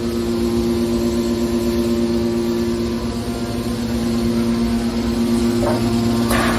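Baling machinery running with a steady, loud two-tone hum over a low rumble, with a short clatter about a second before the end.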